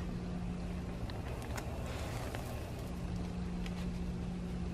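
Steady low machine hum over a low rumble, with a few faint light taps.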